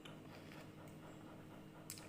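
Faint chewing of crisp red water apple, soft wet mouth clicks over a steady low hum, with one sharp click near the end.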